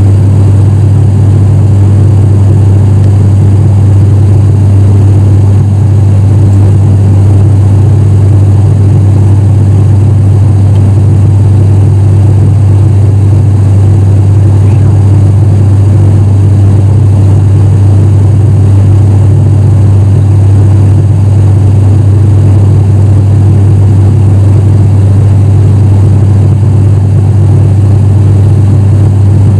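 ATR turboprop airliner's engines and propellers heard from inside the cabin during the climb after take-off: a loud, steady drone with a strong low hum that does not change.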